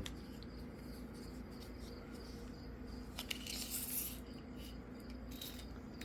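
Faint handling noise: a few small clicks and a brief rustle about three and a half seconds in, over a low steady hum.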